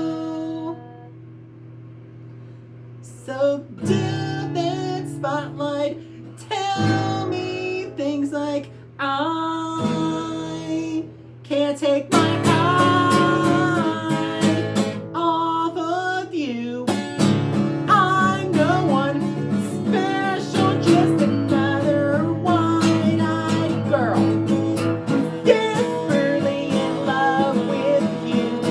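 A song sung to acoustic guitar: after a few soft held seconds the singing comes in, and the guitar strums steadily through the second half.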